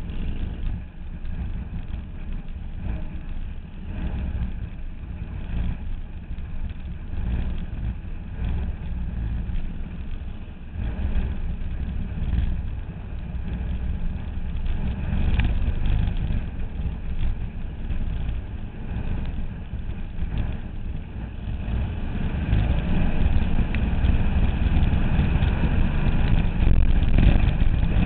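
Race car engines idling, heard from on board one car. The nearby engine runs rough and low, and the sound swells over the last several seconds as the cars start to roll.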